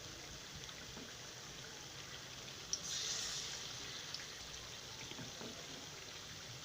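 Batter-coated potatoes sizzling in hot frying oil, a steady hiss with small crackles. The sizzle grows louder and brighter for about a second, about three seconds in.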